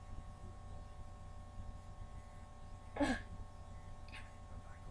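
Quiet room with a faint steady hum while a cola is being drunk. About three seconds in comes one short throat-and-breath sound from the drinker.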